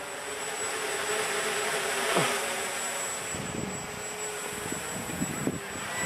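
Walkera Hoten-X quadcopter's brushless motors and propellers buzzing steadily, with a quick falling whine about two seconds in. Wind buffets the microphone near the end.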